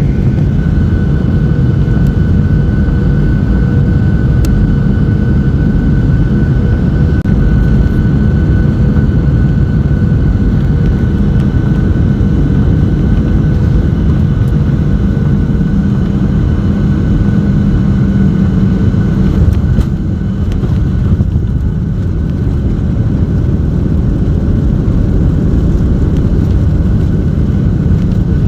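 Boeing 737-800 cabin noise: a loud, steady rumble of its CFM56 jet engines and airflow, with a steady whine on top. About twenty seconds in it drops a little and turns duller.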